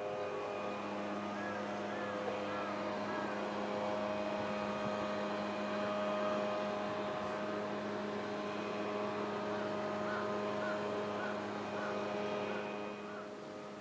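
A steady mechanical hum made of several held tones, with its low tone setting in about half a second in. Faint short high chirps come a couple of seconds in and again later on.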